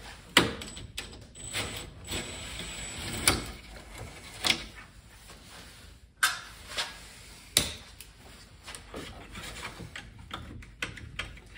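Plastic front grille of a Toyota Land Cruiser Prado KZJ95 being worked loose from its retaining clips and fastener by hand: a handful of sharp plastic clicks and knocks spread out, with light rattling between them.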